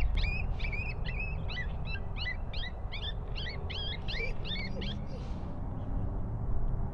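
A bird calling a rapid, even series of high chirps, about four a second, which stop about five seconds in, over a steady low rumble.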